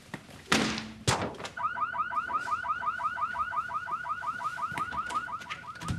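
A swish and a sharp thump in the first second, then a car alarm starts up, a warbling tone repeating about five times a second; the alarm is set off by a book thrown out of the window landing on a car.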